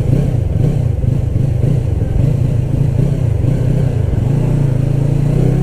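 Yamaha R3's 321 cc parallel-twin engine running at a steady road speed through an unbaffled Akrapovič slip-on exhaust, its low note wavering at first and settling steadier near the end.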